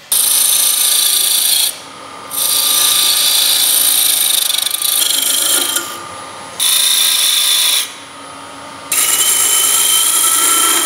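A steel turning tool, likely a parting tool, cutting a tenon into a spindle blank spinning on a wood lathe: a hissing scrape of wood being cut, in several bursts with short pauses between them.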